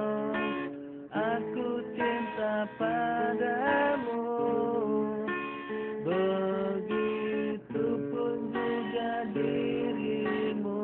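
Background music: a song with strummed acoustic guitar and a sung melody that slides between held notes.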